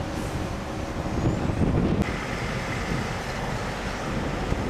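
Wind blowing across the microphone: an uneven low rush of noise that swells a little between about one and two seconds in.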